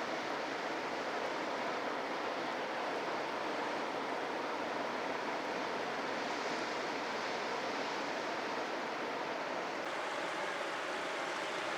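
Sea surf washing against rocks in a steady, continuous rush, without distinct single breakers.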